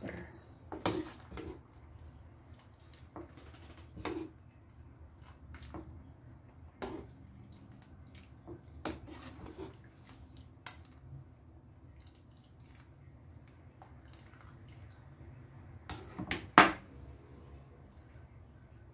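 Metal ladle knocking and clinking against a saucepan and a plastic bowl as egg soup is scooped and poured, with brief splashes of liquid and a sharper clack near the end. A low steady hum runs underneath.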